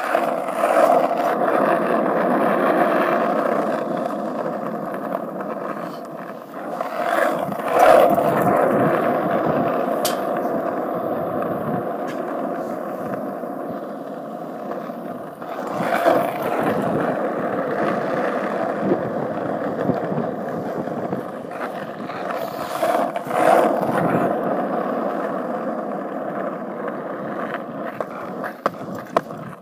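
Skateboard wheels rolling over rough asphalt: a steady gritty rumble that swells louder a few times, around 8, 16 and 23 seconds in.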